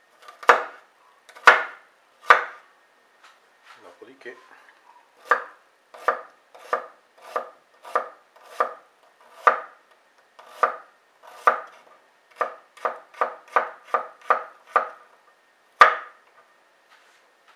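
Kitchen knife chopping an onion on a wooden cutting board, dicing it small, each stroke ending in a knock of the blade on the board. The strokes are spaced out at first, then come in a quicker run of about three a second, with one harder knock near the end.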